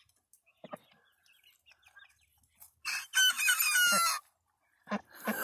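A young cockerel gives a short crow, a little over a second long, about three seconds in.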